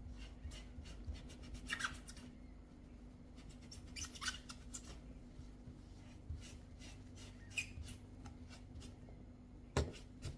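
A melamine foam eraser (Mr. Eraser) rubbed in short scrubbing strokes over the rubbery-finished shell of a computer mouse to lift an ink mark, with a few brief higher squeaks. A sharp knock near the end.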